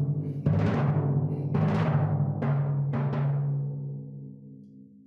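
Viennese timpani with goatskin heads struck about four times on a low, steady pitch. The last note rings on and fades away.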